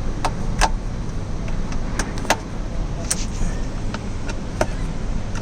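Scattered sharp clicks and light knocks, about half a dozen at uneven intervals, as screws in the plastic console lid are snugged down with a hand screwdriver. A steady low rumble runs underneath.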